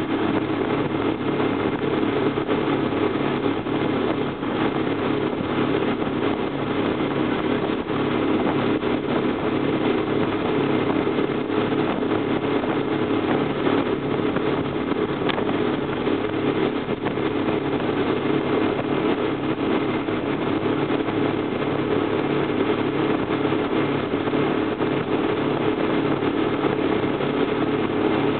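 Motorboat engine running steadily at speed while towing a tube, with the rush of water in the wake behind it.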